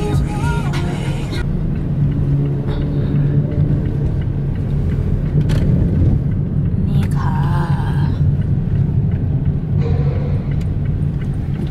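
Steady low rumble of a car's engine and road noise heard from inside the cabin while driving. Music playing at the start cuts out about a second in, and a short voice-like sound comes about seven seconds in.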